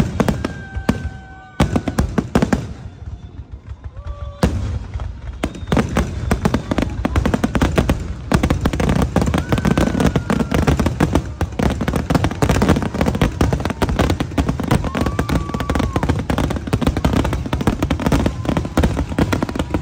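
A fireworks display with aerial shells bursting. A few separate bangs come first; from about four seconds in they merge into a dense, rapid barrage of bangs and crackle.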